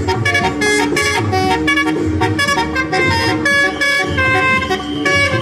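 Indonesian telolet bus horn, a set of horns driven by a tune module, playing a quick melody of short notes that change pitch several times a second.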